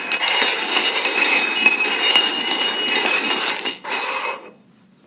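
Cups being shuffled around on a hard surface, clinking and scraping continuously; the clatter breaks off briefly before four seconds in and stops about four and a half seconds in.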